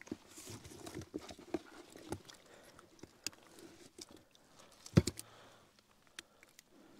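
Wet bream being handled and shifted about in a tray: irregular soft slaps, rustles and small knocks, with one sharper knock about five seconds in.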